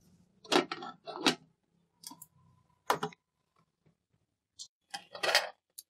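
Pressure cooker lid being put on and closed: about seven short metal clicks and clatters, spread out, the last ones near the end.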